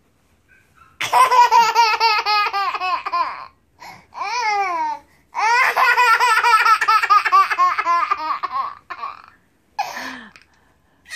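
Toddler boy laughing in two long bouts of rapid, high-pitched giggles, with a short falling squeal between them.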